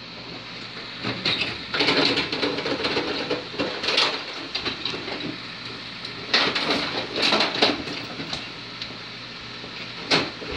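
Carrom Super Stick dome hockey table in play: the steel control rods rattle as they are pushed and spun, and the plastic players clack against the puck and each other in sharp clicks. The clatter comes in spells, with a quieter stretch about five seconds in.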